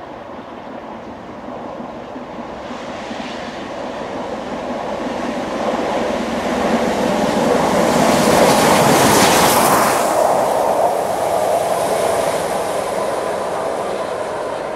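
LMS Stanier Black Five 4-6-0 steam locomotive 44871 and one coach passing at speed on the main line. The sound builds as it approaches, is loudest as it goes by about eight to ten seconds in, then fades as it moves away.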